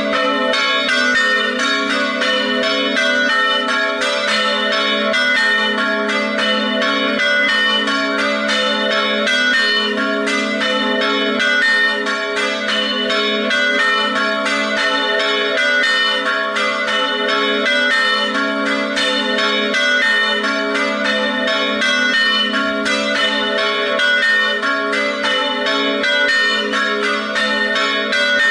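Three church bells tuned A3, B3 and C♯4 ringing together in a festive peal, with rapid overlapping strokes and no pause.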